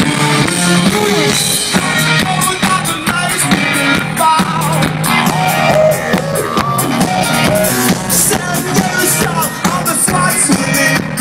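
Live rock band playing over a big outdoor sound system, heard from the crowd: a steady drum beat with electric guitar.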